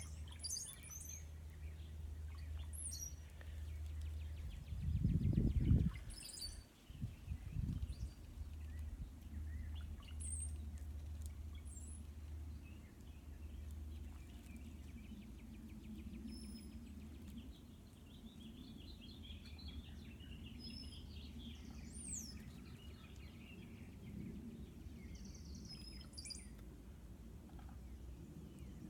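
Birds chirping now and then over a steady low hum, with a loud low rumble about five seconds in.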